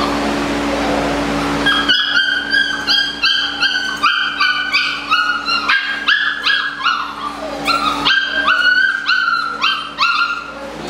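Belgian Malinois puppies yipping: a rapid run of short, high yips, about two or three a second, starting about two seconds in and stopping just before the end, over a steady low hum.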